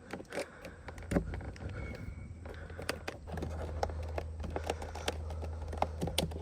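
Pry tool working at the plastic trim around a BMW F10's interior door handle: scattered light clicks and scrapes of plastic as it is pried loose, over a steady low hum.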